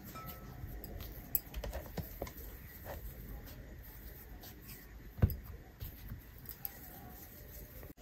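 Scattered light clicks and taps of hands working at a kitchen counter while kneaded dough is divided into balls, with one louder knock about five seconds in.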